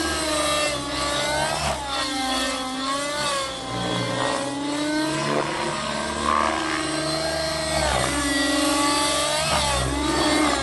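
Miniature Aircraft Fury 55 RC helicopter's OS 50 two-stroke glow engine, through a Hatori muffler, running at high revs in flight along with its main rotor. The engine note keeps rising and falling as the helicopter flies aerobatics.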